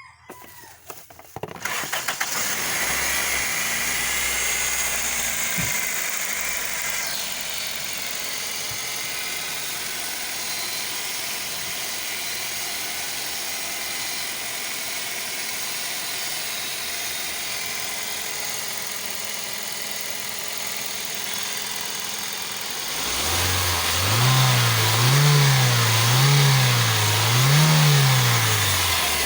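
Toyota 3ZZ-FE 1.6-litre four-cylinder petrol engine cranking and starting about a second and a half in, then idling steadily. Near the end it is revved up and down repeatedly, roughly once a second.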